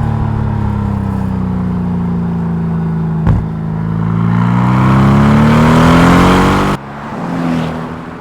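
Mercedes-AMG GT R's twin-turbo V8 accelerating: a sharp crack about three seconds in, then the engine note climbs steadily in pitch until it cuts off suddenly near the end, followed briefly by a quieter engine sound.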